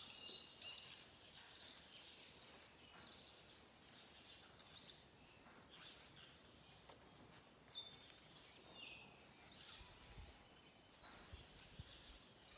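Faint birds chirping, most clearly in the first second and again briefly later, over quiet background hiss, with scattered soft clicks of barbed wire and tie wire being twisted by gloved hands.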